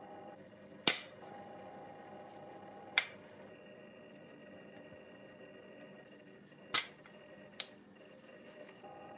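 Chrome bumpers clicking against a model car body as they are fitted, four sharp clicks: one about a second in, one at three seconds, and two close together near the end. A faint steady hum runs underneath.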